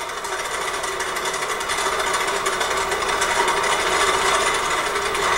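Animal-driven treadmill running: a steady mechanical whir with a fast, even ticking texture.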